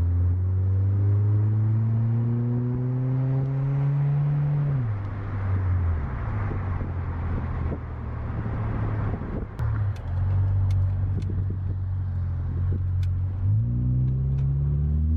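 Car engine accelerating. Its pitch climbs, then drops about five seconds in as it shifts up, and holds steady under a rushing noise with a few sharp ticks. It climbs again near the end as the car pulls through the gear.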